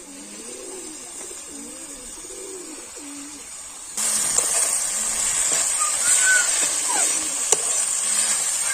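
Doves cooing over and over in low, rounded calls. About four seconds in, a steady high hiss starts up, with a few short higher bird chirps over it.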